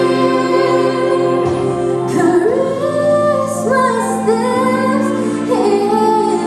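A woman singing over sustained instrumental chords. Her voice comes in about two seconds in, with sliding pitch.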